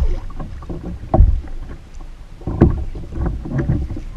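Choppy water slapping against a plastic fishing kayak's hull, with irregular loud thumps about every second or so and wind gusting on the microphone.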